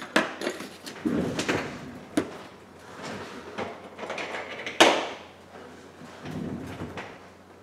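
Handling noises on a repair bench: several sharp knocks and clacks, the loudest about five seconds in, between stretches of rustling, as an iPhone is handled and set down on a mat and a cloth is picked up.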